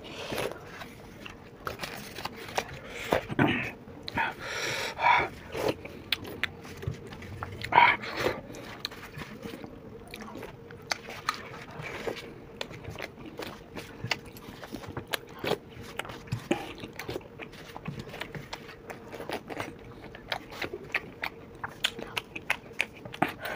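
Fast eating of dahi bhalla, yogurt-soaked lentil fritters: metal spoons scraping and clicking on paper plates, with close chewing and biting mouth noises. A faint steady hum sits underneath.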